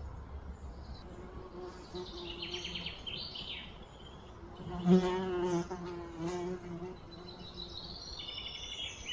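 A flying insect buzzing close by, wavering in pitch as it comes and goes, loudest about halfway through. Short rapid bird chirps sound twice over it.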